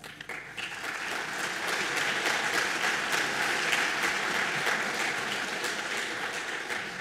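Audience applauding, the clapping swelling over the first couple of seconds and dying away near the end.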